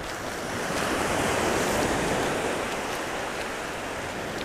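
Shallow surf washing in over the sand, swelling about a second in and then easing off.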